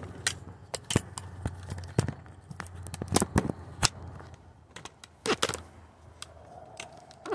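Handling noise from a phone camera being carried and moved about: a dozen or so irregular clicks, knocks and rustles, some of them footsteps.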